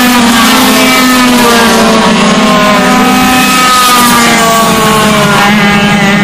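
Several Yamaha two-stroke kart engines racing together in a pack, their whining notes overlapping at different pitches and gliding down and up as the karts brake and accelerate through the corners.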